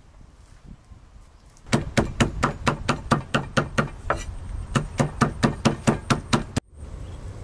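Cleaver chopping dried red chillies on a wooden chopping block: rapid, even strokes at about five a second. They start about two seconds in, pause briefly in the middle and stop abruptly near the end.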